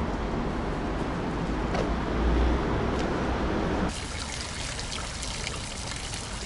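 Street traffic noise with a low rumble, then, after an abrupt change about four seconds in, a park fountain's water splashing and trickling steadily into its basin.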